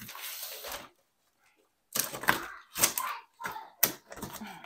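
Delivery packaging handled by hand: a brief rustle, then a run of sharp, irregular clattering knocks and crackles as items are unpacked.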